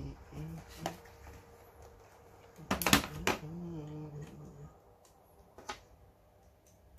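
Handling clicks and knocks as wires and connectors on an opened LCD TV chassis are worked by hand: a quick cluster about three seconds in and a single click near the end. Between them a man hums short held notes.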